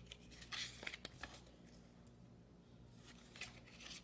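Faint rustling of baseball cards being handled, a few short brushing sounds over low room hum.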